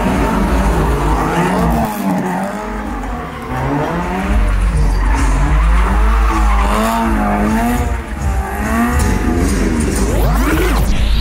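Engines revved up and down over and over: a drifting car, then a stunt motorcycle. Near the end there is a fast rising whoosh.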